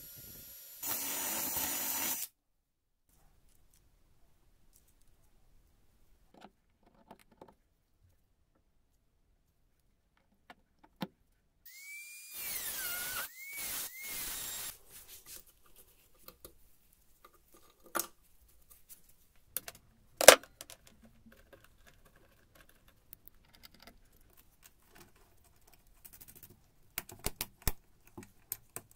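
An electric drill boring into a steel frame stops after about two seconds. About twelve seconds in, a small rotary tool with a cutting disc runs and cuts the metal for about three seconds, its pitch dipping and rising as it bites. After that come scattered sharp clicks and knocks of metal parts being handled, the loudest about twenty seconds in, and a cluster of clicks near the end.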